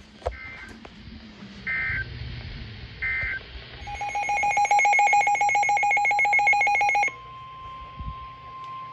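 Emergency Alert System header: three short bursts of data tones about a second and a half apart, then a loud pulsing alert tone for about three seconds. The alert tone gives way to a steady single tone, the lead-in to a new weather warning.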